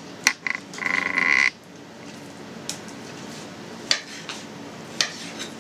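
Cat meowing: a short call, then a longer steady one about a second in. A knife then taps the cutting board a few times as raw pork is sliced.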